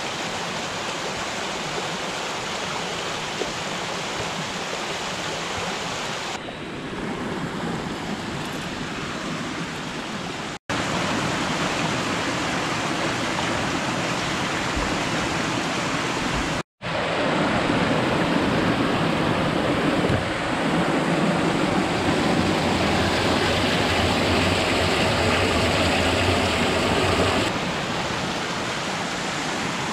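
A small mountain creek rushing and cascading over rocks: a steady, even rush of water that breaks off for an instant twice.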